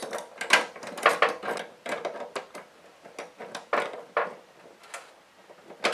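Small metal parts of a kerosene heater's wick-adjuster mechanism clicking and knocking irregularly as the automatic shut-off piece is worked into place.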